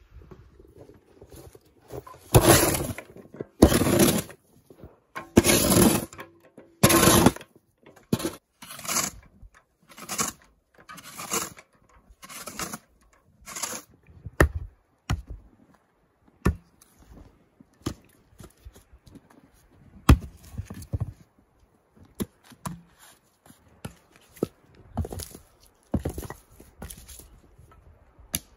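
Axe chopping firewood on a block: a run of heavy blows and splitting cracks about a second apart, then lighter, sharper chops at irregular intervals.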